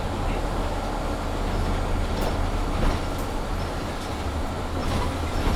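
Mercedes-Benz Citaro C2 G articulated bus running, heard from inside: a steady low engine and road rumble under the loud heater, with a few light rattles.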